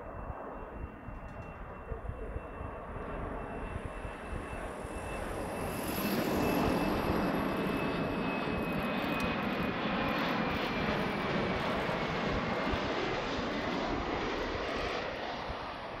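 JASDF U-125 (Hawker 800) flight-check jet's twin turbofans on final approach to landing. The engines grow louder to a peak about six seconds in and stay there, with a high whine that slides slowly lower as the jet passes over the runway.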